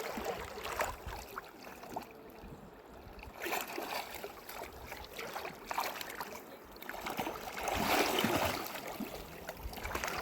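Water splashing and sloshing in irregular bursts over the steady rush of a river, loudest about eight seconds in.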